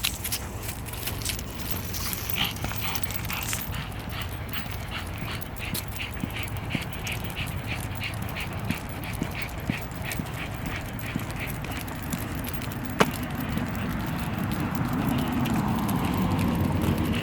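Shih Tzu making short, evenly spaced sounds, about two or three a second, for several seconds, then a single sharp click.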